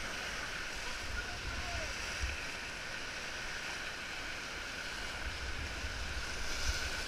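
Whitewater rapids rushing steadily around an inflatable raft, with wind buffeting the microphone.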